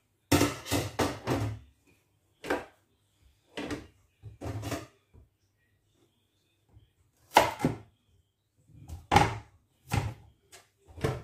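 A series of short knocks and clatters, about eight spread over the stretch, as vegetables and a cutting board are handled on a kitchen counter.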